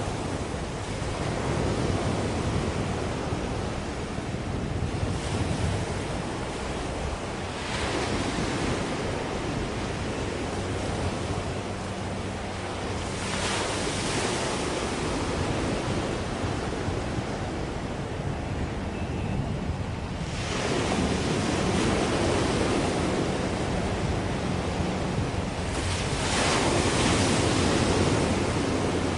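Sea waves washing in, swelling every five or six seconds, with wind buffeting the microphone and a faint low steady hum underneath.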